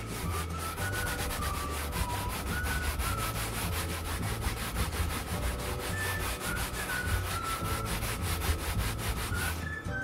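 A cloth rubbed briskly back and forth over a car's fabric headliner, about five or six strokes a second, wiping off foam cleaner that has been left to soak in. The rubbing stops just before the end.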